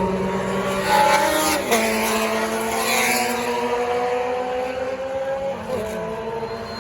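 Historic Formula 2 racing cars' engines running hard, several engine notes overlapping. The pitch steps down twice, about two seconds in and again near the end.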